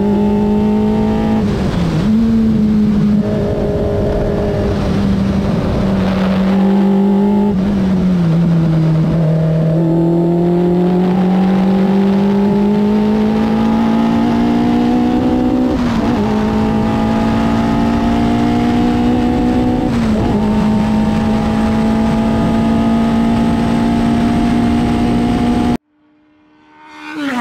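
Formula 4 race car engine heard onboard at speed, its note climbing slowly and dipping briefly at several gear changes, with a slower fall and rise in pitch around the middle. It cuts off suddenly near the end, and a short rising swoosh sound effect follows.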